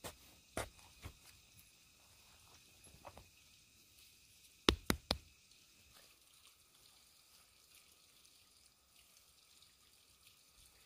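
Sharp knocking impacts: a few strikes in the first second, then three quick knocks about halfway through, with little else between.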